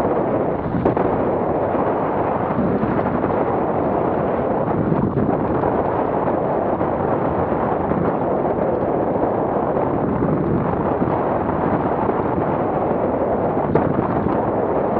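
Steady rush of airflow buffeting the microphone of a camera mounted on a hang glider's wing in flight.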